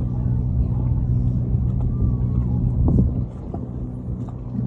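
Steady low hum of a large boat's engine running, a constant drone of several low tones, dipping quieter for about a second past the three-second mark.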